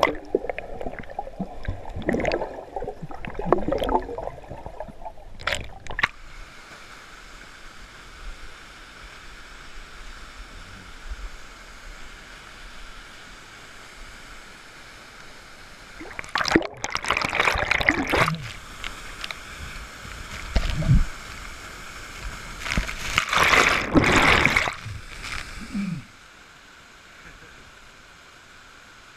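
Water at a waterfall pool, heard close up: sloshing and gurgling around a camera dipped under the surface, a steady rush of falling water, and a few loud spells of churning white water. Near the end it drops suddenly to a quieter steady rush of the stream.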